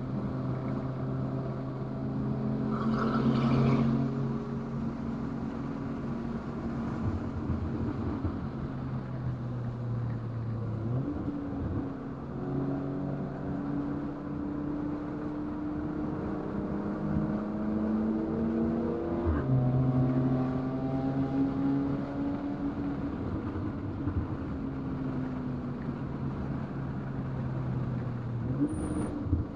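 2019 VW Golf R's turbocharged 2.0-litre four-cylinder, Stage 2 tuned, running under way with a steady engine note. Its pitch jumps up suddenly about eleven seconds in and again near the end, and drops suddenly about twenty seconds in, like gear changes. A brief burst of hiss and rumble comes about three seconds in.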